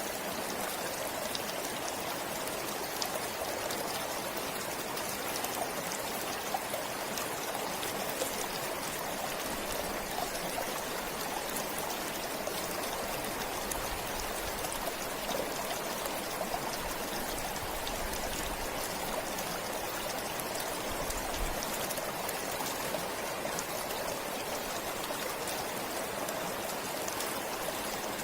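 Forest stream flowing, a steady rush of running water with small splashes and trickles.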